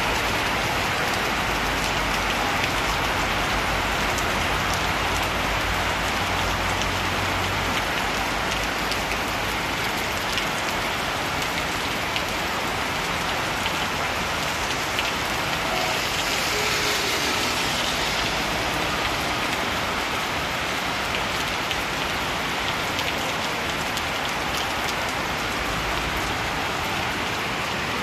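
Heavy rain pouring steadily onto a paved street and trees.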